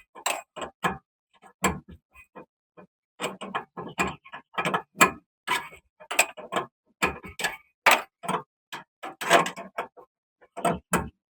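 Ratchet wrench clicking in quick, irregular strokes with short pauses, run down a rear stabilizer link nut to tighten it.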